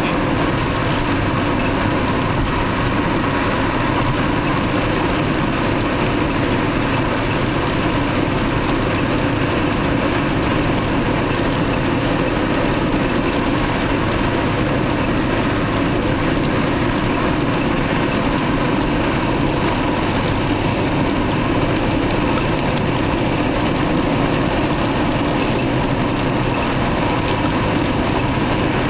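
Steady road and engine noise of a car driving on an expressway, heard from inside the cabin, with no change in level.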